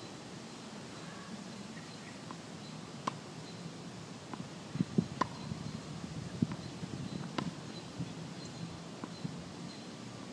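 Irregular sharp knocks of tennis balls bouncing on a hard court and being struck by a racket, the loudest bunched together about five seconds in, over a steady outdoor background.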